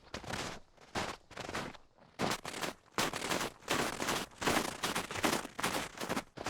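Close-up sounds of a hiker climbing a trail on foot: a quick, uneven run of short rough noises, about two to three a second, denser after the first few seconds.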